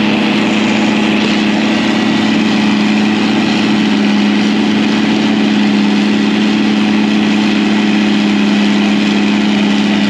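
Diesel farm machinery running steadily while a John Deere self-propelled forage harvester chops corn, heard from inside the following tractor's cab: a loud, constant engine drone with a low hum.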